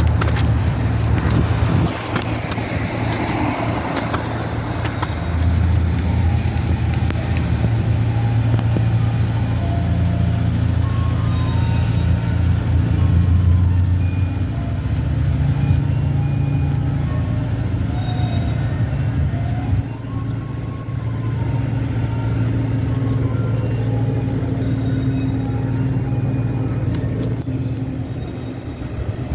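Ice cream truck's chime melody playing from its loudspeaker in short stepping notes, over a steady low rumble of vehicle and traffic noise.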